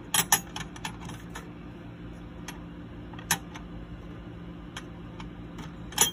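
A tower CPU cooler's metal mounting bracket being set down on the motherboard around the CPU socket and shifted into place, giving sharp metallic clicks and taps: a quick cluster in the first second or so, a single one about three seconds in, and a couple more near the end.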